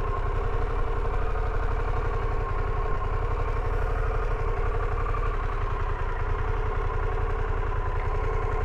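Harley-Davidson Pan America's 1250 cc V-twin motorcycle engine idling steadily while the bike creeps along at walking pace.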